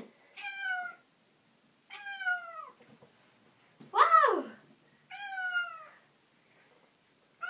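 Domestic cat meowing four times, each meow drawn out and falling in pitch, the loudest about four seconds in.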